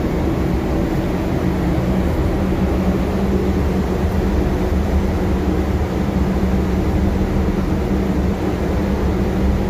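A steady, low mechanical drone with a constant hum under it, unchanging and with no separate knocks or clicks.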